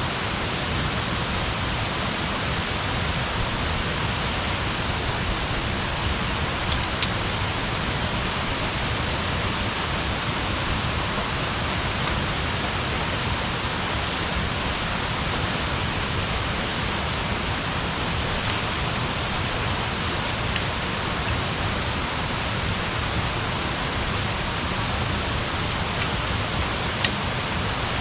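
Campfire burning with a steady rushing hiss, and a few faint crackles and pops scattered through it.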